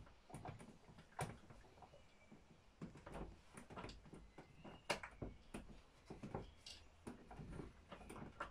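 Saw chain being fitted onto an Alpina ACS 46 chainsaw's guide bar by gloved hands: irregular light metallic clicks and small rattles of the chain links against the bar.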